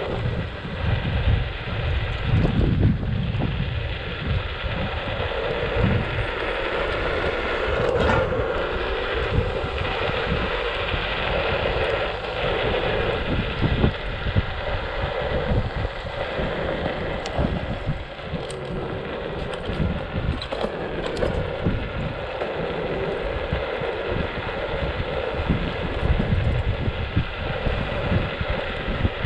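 Scooter riding along a road, its motor running steadily, with wind buffeting the microphone.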